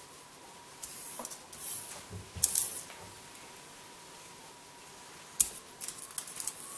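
Hands handling a soft ball of rice-flour and grated-yam dough: faint rubbing and dabbing, with two sharper taps against the countertop, one about two and a half seconds in and one about five and a half seconds in.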